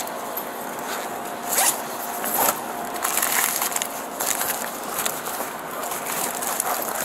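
Bags being searched by hand: rustling and handling of their fabric and contents, with brief louder noises about one and a half and two and a half seconds in.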